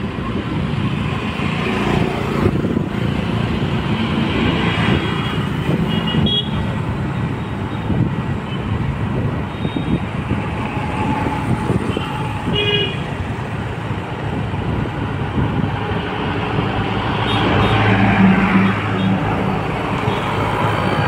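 Steady road noise of a motor scooter riding through traffic, with a few short vehicle horn toots, the clearest about two-thirds of the way through.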